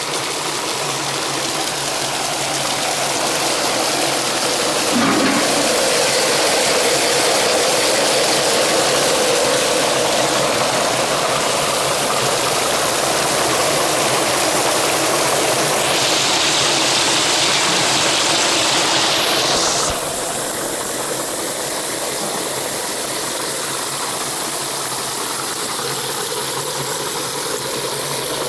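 Water gushing from a pipe and splashing over a small Archimedes screw, a steady rushing noise. About two-thirds through there is a harsher, hissier stretch of a few seconds that stops abruptly.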